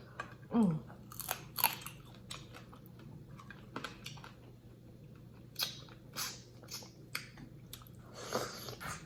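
Close-miked eating of a seafood boil: chewing and biting with irregular sharp clicks and crunches.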